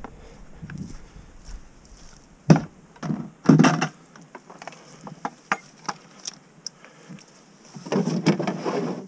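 Irregular knocks, clicks and rattles of gear being handled in a small boat, with loud thumps about two and a half and three and a half seconds in and a rustling shuffle near the end.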